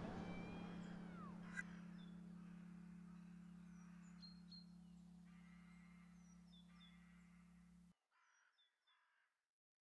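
Faint outdoor ambience of birds chirping over a steady low hum, fading out. The hum cuts off suddenly about eight seconds in, leaving a few faint bird calls.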